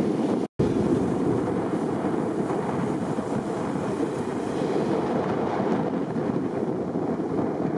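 Strong wind on the microphone over breaking surf, a steady rushing noise. It cuts out for an instant about half a second in.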